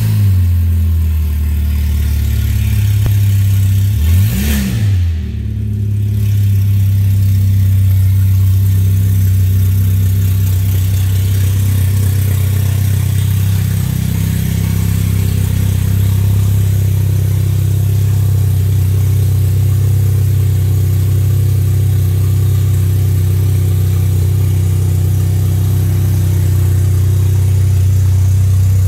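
2013 Volkswagen Jetta's 2.0-litre four-cylinder engine idling just after starting, with one quick rev up and back down about four seconds in, then a steady idle.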